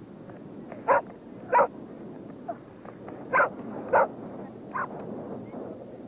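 Canine yips: five short, sharp calls at uneven spacing.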